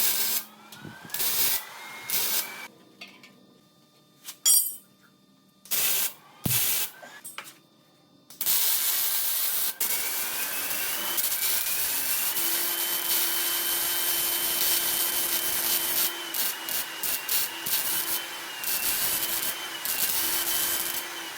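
Angle grinder on the steel shell of a bulldozer muffler: several short bursts, each with a rising whine as the disc spins up, then from about eight seconds in a continuous run of grinding with a steady high whine.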